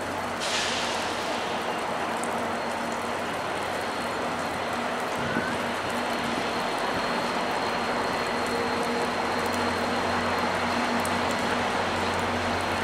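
EMD F40PH-2 diesel locomotive hauling a passenger train slowly out of the station. Its engine gives a steady low hum under a wide rumble that grows a little louder as it approaches, and a brief high hiss comes about half a second in.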